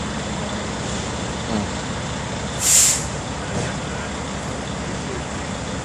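Truck engine running steadily, with one short sharp hiss of its air brakes releasing a little under halfway through.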